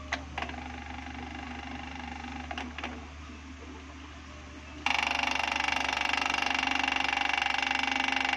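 A steady low hum with a few light clicks and knocks as an electric stand fan's motor housing and knob are handled. About five seconds in, a much louder, rapid rattling buzz starts abruptly and holds steady.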